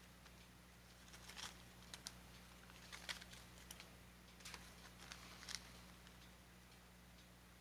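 Faint handling noises: a scatter of light clicks and rustles from about one second in to about five and a half seconds in, over a low steady electrical hum.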